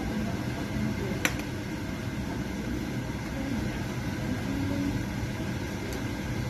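A metal ladle stirring a large pan of thick, creamy chicken macaroni soup, with one sharp tap about a second in. A steady low hum runs underneath.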